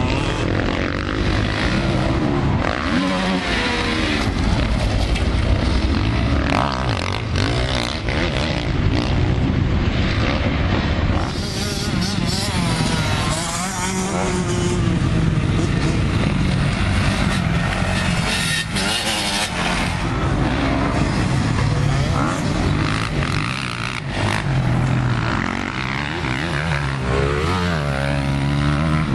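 Several motocross dirt bikes riding the track, their engines revving up and down through gear changes and corners in a continuous, overlapping racket.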